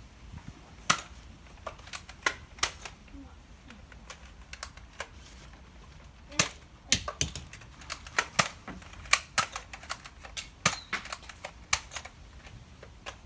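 Irregular run of sharp clicks and knocks from Nerf blaster play: the blaster being worked and fired and foam darts striking plastic army men, in two clusters with a lull of a few seconds between them.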